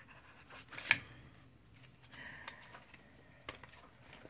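A few light handling clicks and rustles, with one sharp click about a second in.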